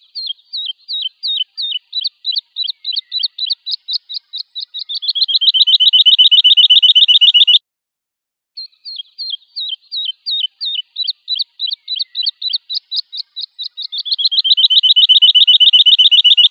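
Lark song, the same phrase given twice with about a second's gap between. Each phrase begins with spaced, sliding whistled notes that quicken and grow louder into a fast, even trill lasting a couple of seconds, which cuts off abruptly.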